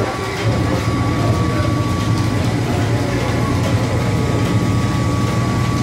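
Overhead line shafting of an antique belt-driven machine shop running: a steady mechanical rumble of turning shafts, pulleys and flat belts, with a thin steady whine over it.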